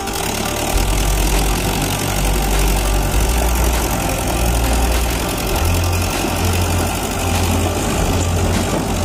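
Mahindra tractor's diesel engine running under load as it hauls a trailer of stone slabs, its low engine note strengthening about a second in and holding steady.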